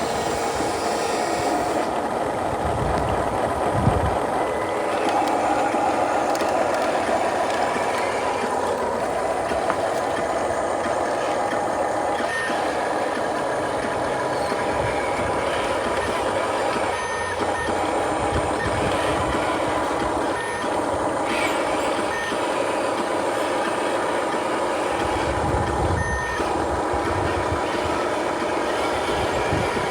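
Remote-control truck reversing, its backup beeper sounding steadily over continuous engine noise.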